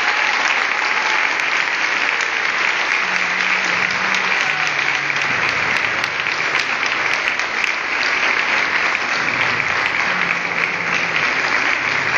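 Audience applauding steadily: a dense, even clapping from a large crowd.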